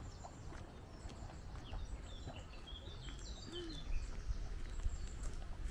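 Several small birds chirping and singing in short, high notes among the trees, over a low steady rumble.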